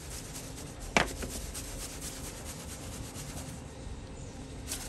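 A single sharp knock about a second in, a seasoning shaker being set down, over a low steady background rumble.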